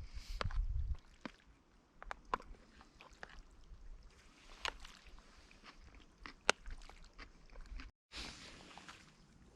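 Sparse small clicks and taps of things being handled, over a faint hiss, with a low wind rumble on the microphone during the first second. The sound cuts out briefly near the end and returns as a steady hiss.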